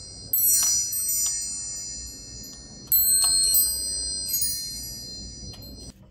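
Chimes ringing: high metallic tones struck in jingling clusters, the main ones near the start and about three seconds in, each ringing on and fading away.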